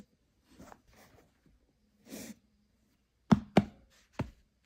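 Soft rustling of flat fabric shoelaces being pulled and handled on a sneaker, then three sharp knocks close together near the end, much louder than the rustling.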